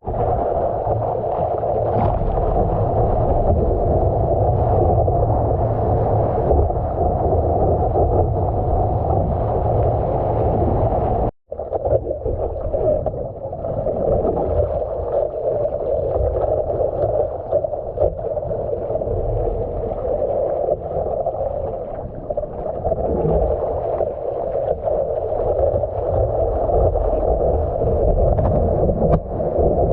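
Water and wind rushing over a GoPro's microphone, a steady muffled rush. It cuts out for an instant about eleven seconds in.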